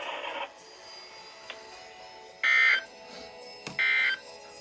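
Two short, loud bursts of SAME digital data tones from a NOAA Weather Radio broadcast, each about half a second long and about a second and a half apart. These are the end-of-message code that closes the weekly warning alarm test. Faint steady tones sit underneath.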